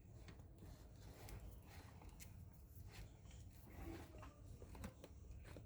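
Faint rubbing and scattered light clicks of hand work at a bench, over a low steady hum.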